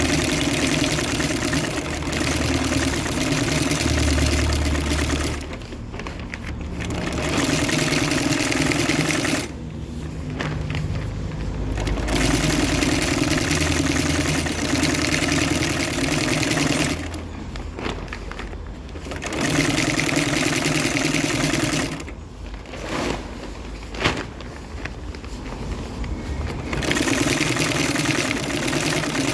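Industrial double-feed (walking-foot) sewing machine stitching in runs of a few seconds, five times, with quieter pauses between the runs. A single sharp knock comes during one of the pauses, near the end.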